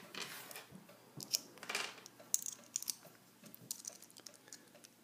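Faint, scattered small metallic clicks and a few short scrapes from a lock and small tools being handled. The clicks come irregularly, several a second at times.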